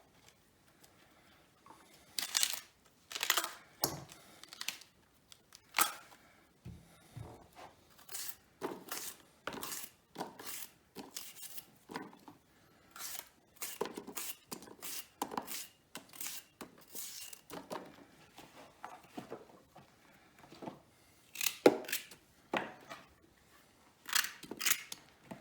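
Fresh fennel bulbs being broken apart into their layers, with crisp tearing and snapping sounds at irregular intervals.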